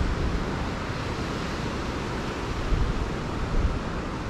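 Wind buffeting the microphone over the steady wash of ocean surf.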